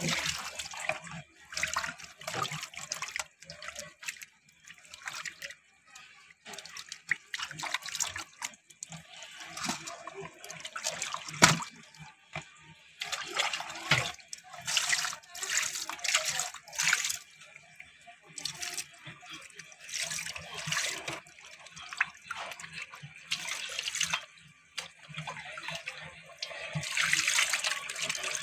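Raw goat lungs and offal being washed by hand in a steel bowl of water: irregular bursts of splashing and sloshing, with a sharp knock about eleven seconds in.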